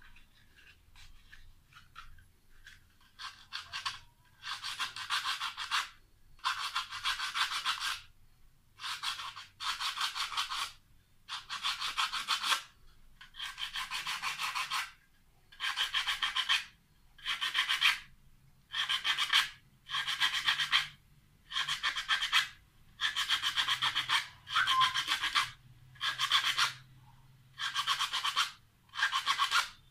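Rasping, scraping strokes from hand work on a small water-purifier pump motor. The strokes are each about a second long with short pauses between them. They start faint and become loud and regular after about three seconds.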